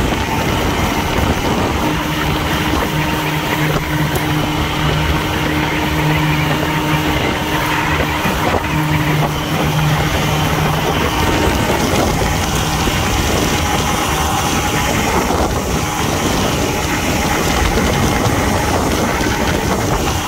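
1968 Evinrude 18 hp two-cylinder two-stroke outboard running steadily with the boat under way, on a run after its gearcase rebuild. Its hum is plainest from about two to eleven seconds in, under a constant rush of wind and water along the hull.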